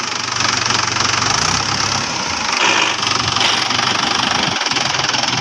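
Mahindra 585 DI XP Plus tractor's four-cylinder diesel engine running steadily.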